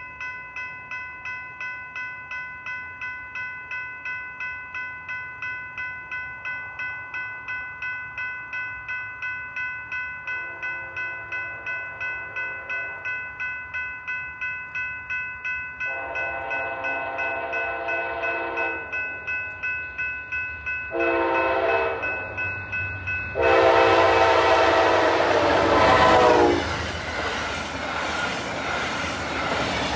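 Railroad crossing warning bell dinging steadily, about two and a half strokes a second. An approaching Amtrak train blows its horn in the long, long, short, long grade-crossing pattern, each blast louder than the last, with the final long blast the loudest. The train then rushes through the crossing.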